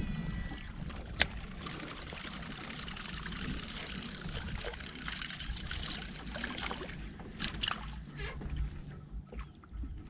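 Deps Huge Buzzbait retrieved across the water surface, its blade churning and gurgling steadily, with a sharp click about a second in; the churning stops about seven seconds in, as the lure comes out of the water.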